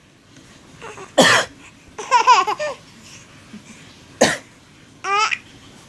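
A man coughs once, and a young child answers with a short, high-pitched giggle; this happens twice.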